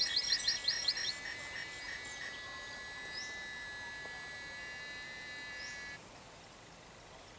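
Cheap sound-chip renditions of nature sounds from the solar-powered speaker horns of a sound art installation: a fast run of synthetic bird chirps that stops about a second in, under a steady high electronic drone of several pitches, like a synthetic cricket, that cuts off suddenly near the end.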